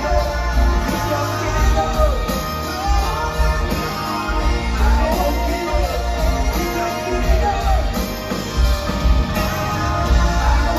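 Live rock band playing, with electric guitars and drums under a male lead vocal.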